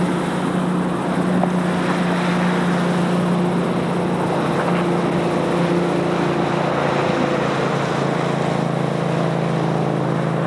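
Tow boat's engine running steadily under way, a constant drone that drops slightly in pitch near the end, over a steady rushing hiss.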